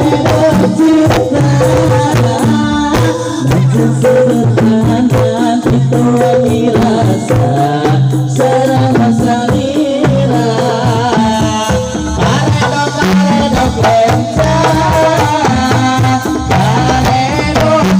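Rebana frame-drum ensemble playing a rhythmic Sundanese-style piece, drums and jingles under a sung or played melody.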